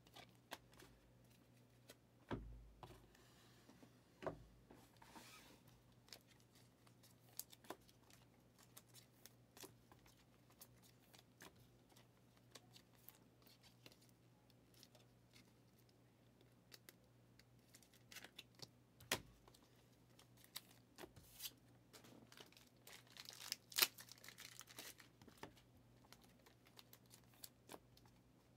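Near silence: faint room hum with scattered small clicks and taps, and a short burst of crinkling about 24 seconds in.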